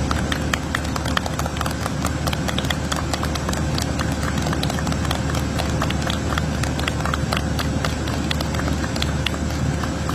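Dense, irregular clicking of press camera shutters, several a second, over the steady hum and high whine of a jet aircraft's engines.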